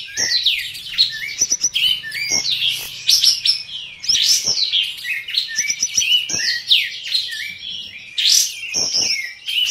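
Olive-winged bulbuls (kapas tembak) singing loudly, rich varied whistled phrases coming one after another every second or so, with several birds' songs overlapping.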